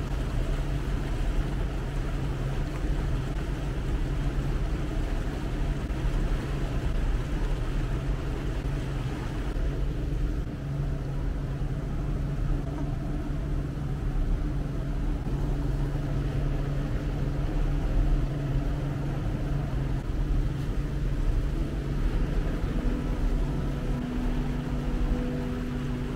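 Small open boat's outboard motor running steadily at cruising speed, a low even hum over a hiss of wind and water rushing past the hull.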